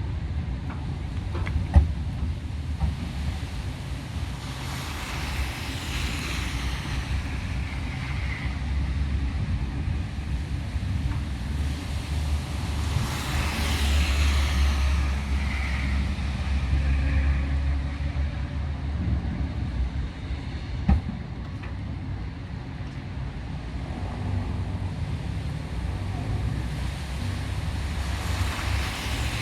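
Wind rumbling on the microphone, while cars pass twice on a wet road, their tyre hiss swelling and fading. Two sharp knocks, one near the start and one about two thirds of the way in.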